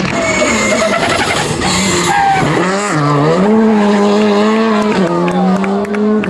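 Rally car engine at high revs. The revs drop sharply about two and a half seconds in and climb back, with another step down in pitch about five seconds in.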